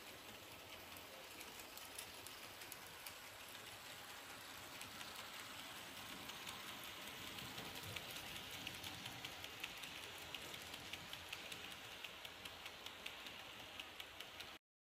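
Märklin HO model train running past on its track: a steady rolling whirr of wheels and motor with regular clicks over the rail joints, getting louder as the train comes close. The sound cuts off suddenly near the end.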